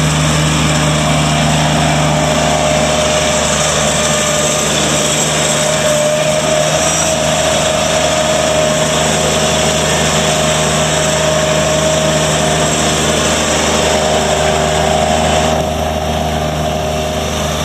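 Toro Dingo TX525's 25 hp Kubota diesel engine running steadily, with a steady whine over the engine note. About fifteen seconds in, the higher-pitched noise drops away abruptly while the engine keeps running.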